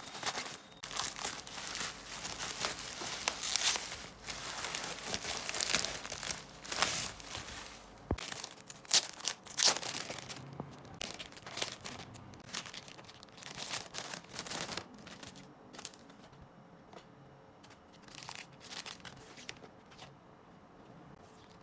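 Plastic wrapping crinkling and tearing as a card pack is unwrapped by hand. It is busy for about the first ten seconds, then thins to scattered crackles and clicks that grow quieter.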